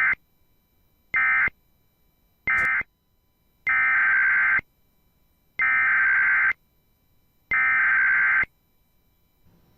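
Emergency Alert System SAME digital data bursts, the buzzy two-tone warble of an EAS encoder: three short bursts about a second apart, the end-of-message code closing the previous alert, then three longer bursts about two seconds apart, the header of the next alert.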